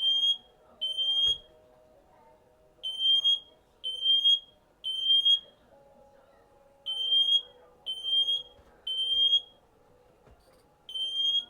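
Smoke detector alarm sounding its repeating three-beep pattern: groups of three loud, high-pitched beeps with a short pause between groups, set off by smoke from something burned.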